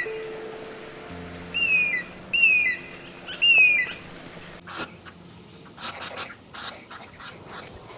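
Three pairs of short, high whistled animal calls, each falling in pitch, over steady background music tones. In the second half the calls stop and a run of short, noisy sounds follows.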